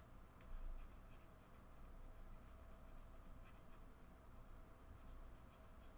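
Faint rubbing and light ticking of a stack of cardboard football trading cards being thumbed through by hand, card sliding over card.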